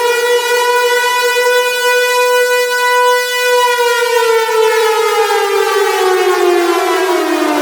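Civil-defense-style siren wailing at a steady pitch, then winding down, its pitch falling steadily over the last four seconds.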